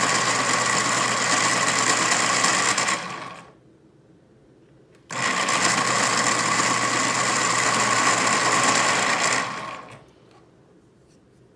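Electric pencil sharpener grinding a colored pencil to a point: a loud, steady whirr in two runs of about four seconds each, stopping briefly about three seconds in before running again.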